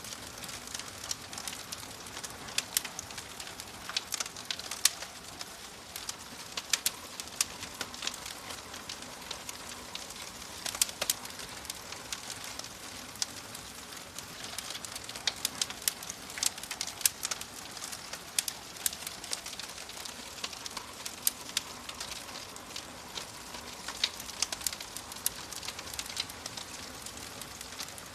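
Wood fire crackling: frequent, irregular sharp pops and snaps over a steady hiss.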